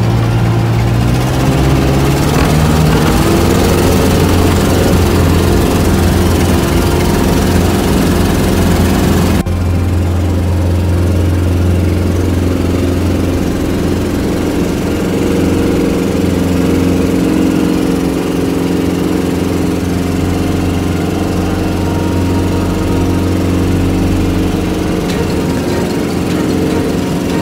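Jabiru 430's 2.2-litre, 80-horsepower four-cylinder engine and propeller opening up for takeoff: the engine pitch rises over the first few seconds as a rush of noise builds. After an abrupt cut about nine seconds in, a steady engine drone at climb power heard inside the cabin.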